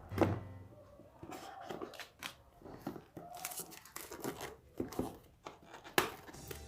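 Plastic packaging being torn open and handled: irregular crinkling and tearing with scattered sharp clicks, and louder knocks at the start and about six seconds in.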